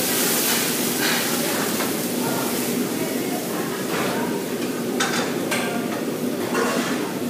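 Stir-frying in a wok on a gas wok range: food sizzling in the hot wok with a hissing flare of flame near the start, over a steady background rush. A metal ladle clinks and scrapes against the wok several times in the second half.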